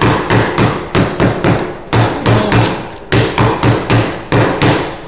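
Wooden pestle pounding lemongrass stalks in a plastic bag on a wooden cutting board, a steady run of dull thuds about four a second with a brief break midway, bruising the lemongrass to release its aroma and flavour.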